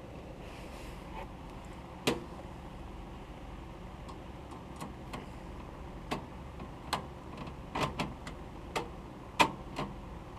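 Irregular sharp clicks and taps of a screwdriver and screw against a computer case as a case fan is screwed in with a single screw. There are about a dozen clicks, coming closer together in the second half, the loudest about nine seconds in.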